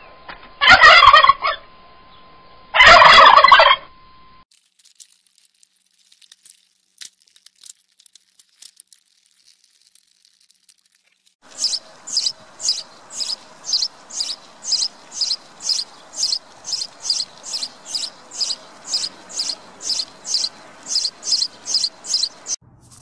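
Male turkeys gobbling twice, each gobble about a second long. After a quiet stretch with faint ticks, a bird repeats a short, sharp, high call about twice a second for roughly ten seconds.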